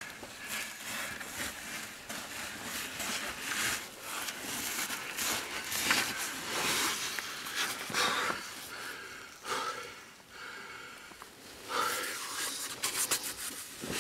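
A caver breathing hard while crawling through a tight squeeze, with irregular scraping and rustling of the caving suit against rock and dirt.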